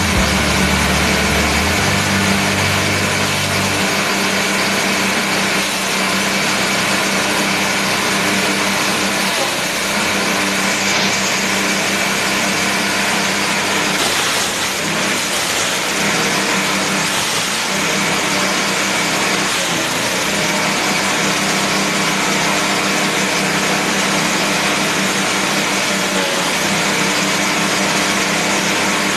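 HWC M200 grass chopper running steadily on its small engine, shredding cassava stalks and leaves fed into its hopper.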